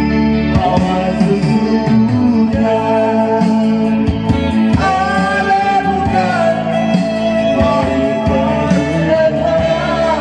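Live band music through a PA: an electronic keyboard playing steady chords under a man singing into a microphone, his melody wavering in pitch.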